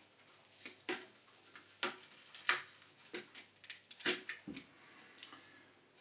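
Irregular light clicks and taps of small model parts being handled and set down on the layout.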